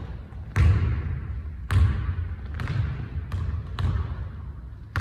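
Basketballs bouncing on a gym floor: about six sharp, irregularly spaced thuds that echo around the hall, the loudest a little under a second in and near two seconds in.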